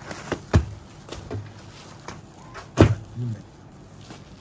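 Folded silk sarees being set down and handled on a shop counter: two dull thumps, about half a second in and near three seconds in, with a few lighter knocks between.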